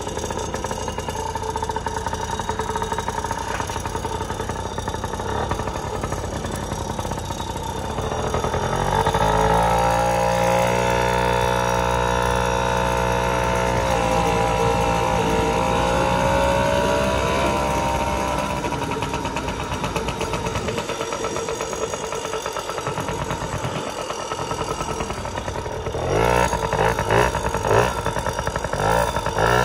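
Yamaha PW50's small single-cylinder two-stroke engine running under a rider: steady at low throttle at first, then revving up about eight seconds in and holding high with small rises and falls in pitch. It eases off past the middle and ends with several quick throttle blips.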